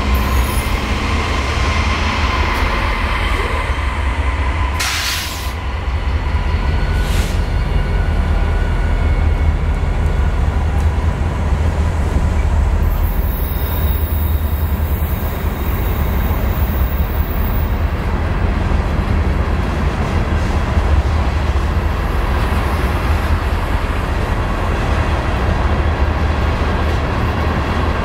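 Freight train of tank cars rolling past close by: a steady low rumble of wheels on rail, with two sharp clanks about five and seven seconds in and a high wheel squeal from about thirteen seconds in lasting several seconds.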